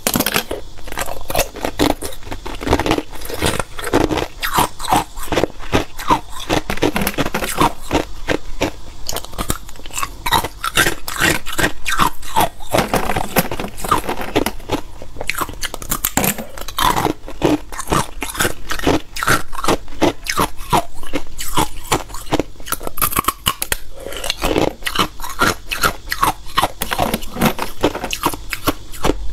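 Close-miked biting and chewing of hard clear ice cubes: a dense run of sharp cracking crunches, several a second.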